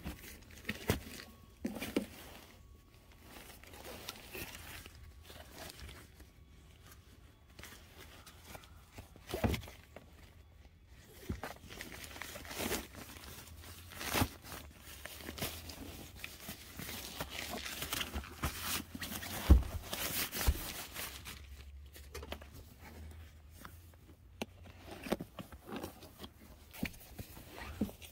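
Nylon fabric rustling and crinkling as an air sleeping pad is pulled out of its stuff sack and unrolled, with scattered light knocks and one sharper thump about two-thirds of the way through.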